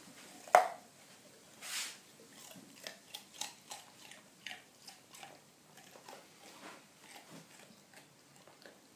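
A dog chewing a raw carrot, with a sharp loud crunch about half a second in, then a run of irregular crisp crunches that thin out towards the end.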